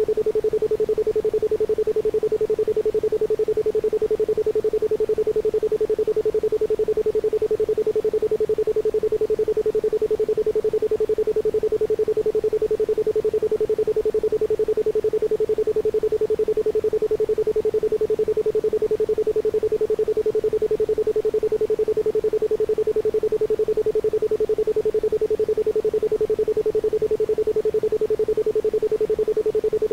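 Isochronic tone: a steady 432 Hz pure electronic tone switched on and off in fast, even pulses, with no other sound.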